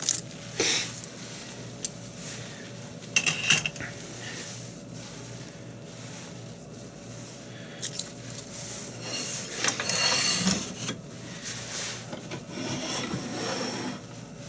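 Metal clinks, knocks and scraping from handling a wood lathe: the four-jaw chuck is worked and the tailstock is slid along the bed toward it. Sharp clicks come about half a second and three seconds in, and a longer scraping clatter around ten seconds in.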